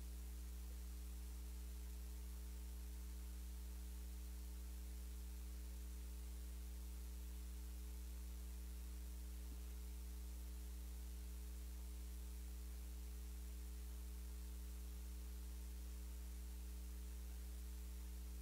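Steady electrical mains hum with faint hiss on the sound system's feed, and nothing else heard.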